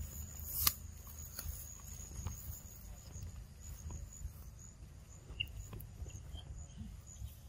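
Insects trilling steadily at a high pitch, breaking into a pulsed chirp later on. A rustle and a couple of clicks from leaf litter and grass come near the start, and a few faint short chirps come later.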